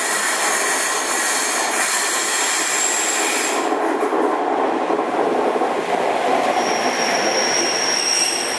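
Class 142 Pacer diesel multiple unit running into the platform: a steady noise of engine and wheels, with a thin, high squeal that joins about two-thirds of the way through.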